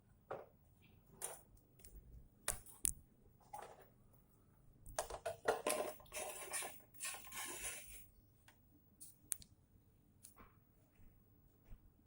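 Small hard objects being handled on a workbench: irregular clicks, clinks and knocks, with a stretch of scraping and rustling about five seconds in.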